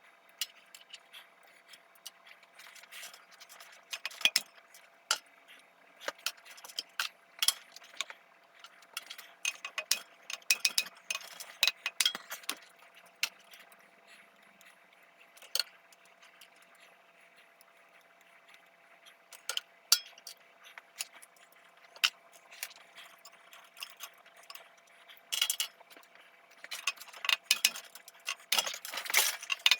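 Scattered sharp metallic clicks and clinks of hand tools and small valve parts being handled while valves are taken out of a Cummins diesel cylinder head, in irregular flurries.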